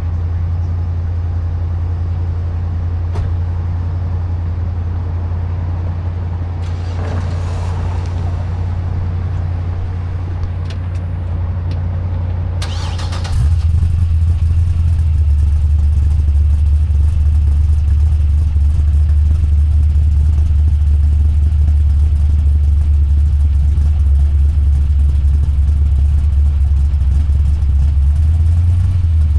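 A motor vehicle's engine running with a steady low rumble, growing louder and deeper about 13 seconds in.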